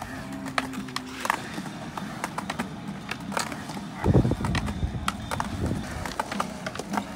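Skateboard riding in a concrete bowl: sharp clacks of the board and wheels throughout, and a loud low rumble of wheels rolling hard on concrete starting about four seconds in.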